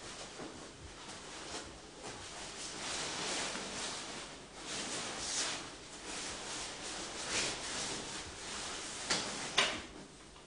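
Rustling of a heavy coat as it is handled and taken off, swelling and fading, with two sharp clicks about half a second apart near the end.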